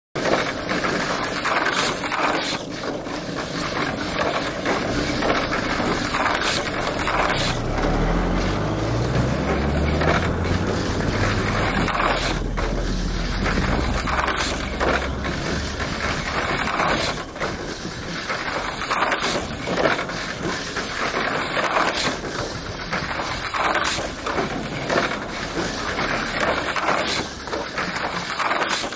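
Tamiya Mini 4WD cars running around an aluminium track, a continuous whirring with frequent sharp clacks as they strike the track walls. A low hum climbs in pitch about eight seconds in and fades out around sixteen seconds.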